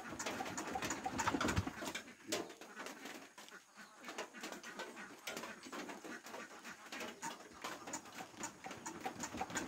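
Irregular light clicks and knocks from hands working on an old 8 hp diesel engine that is not yet running, with birds calling in the background.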